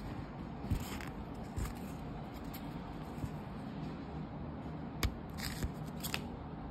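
Hands handling a tulle tutu skirt against a plastic high-chair tray: a few light clicks and short rustles, over a steady low background hum.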